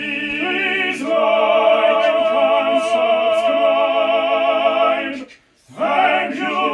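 A man's operatic voice singing long held notes with a wide vibrato. It breaks off for about half a second some five seconds in, then a new held note begins.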